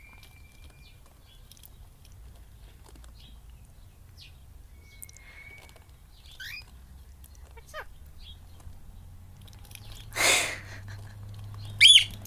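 A bird calling: scattered short chirps and whistles, a harsh noisy screech about ten seconds in, and a loud call that rises and falls near the end.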